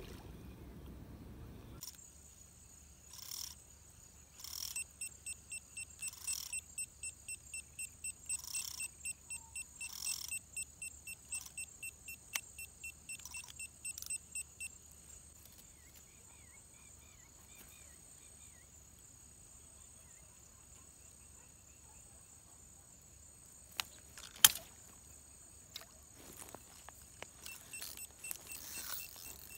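Night insects calling by the water: a steady high trill, with a run of short repeated calls about every second or so through the first half. A single sharp click comes a little after the middle.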